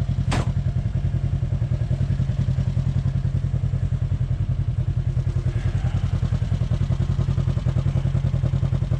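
Polaris RZR 1000 side-by-side's engine idling steadily, with one sharp click about half a second in.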